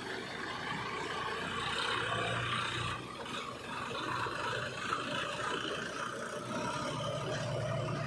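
Diesel engines of a tractor and a backhoe loader running steadily.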